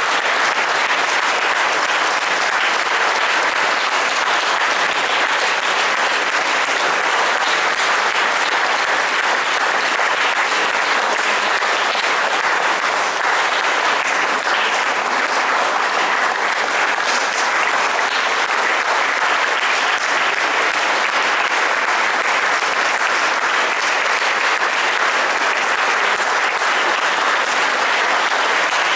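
Audience applauding steadily, a dense, continuous clapping that does not let up.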